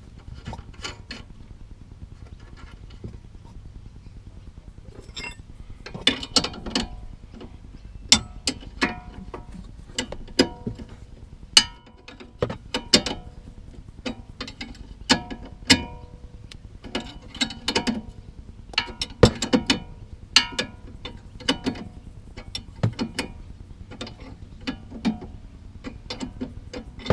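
Ratchet wrench clicking in irregular runs as the nut on a sway bar end link is tightened onto its stud. The clicks are sparse at first and come thicker from about five seconds in.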